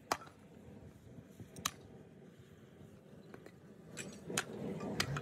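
Workshop handling noises: five or so sharp clinks and knocks, spaced irregularly, over a low rough noise that grows louder in the last second.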